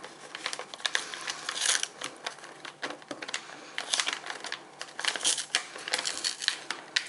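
Brown kraft paper wrapping crinkling and rustling as hands unfold and pull at its folded, taped flaps, a string of small irregular crackles.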